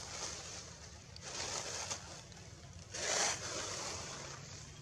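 Wind rushing through tree leaves, swelling twice and loudest about three seconds in.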